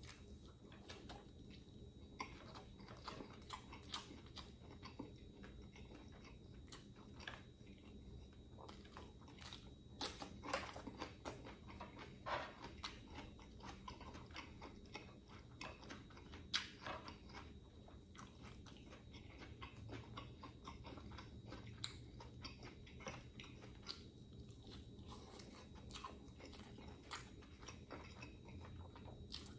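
Faint close-up eating sounds: a person biting and chewing food, with irregular crisp crunches and small wet clicks.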